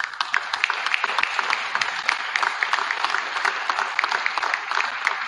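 Audience applauding: many hand claps over a steady wash of clapping.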